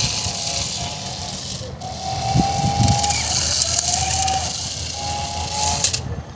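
RC drift car's motor whining at a steady pitch, breaking off briefly several times and gliding up in pitch about three seconds in, over a continuous hiss. A few low thumps come about two and a half seconds in.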